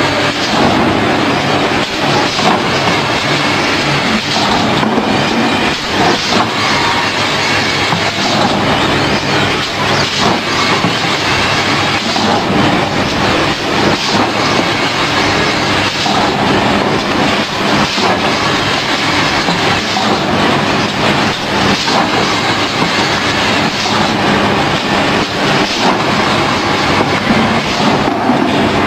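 Automatic screen-printing machine for plastic buckets running: a steady mechanical clatter of many irregular small clicks and knocks.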